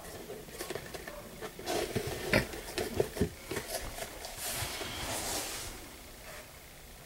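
Handling of a stiff vegetable-tanned leather tankard by hand: scattered knocks and taps against the bench in the first few seconds, then a rubbing, brushing sound from about four to six seconds in as it is turned over.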